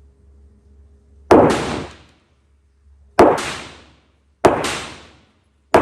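Glock 48 9mm pistol fired in slow single shots, four in all, a second and a half to two seconds apart, each shot followed by a short echoing tail; the last comes right at the end.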